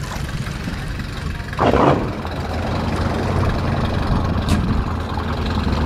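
A ski boat's inboard engine idling on its trailer out of the water, a steady low drone, mixed with the tow pickup backing it down the ramp. Started dry like this, the engine's water pump runs without cooling water. A short, louder burst of noise comes about a second and a half in, and a brief sharp click later.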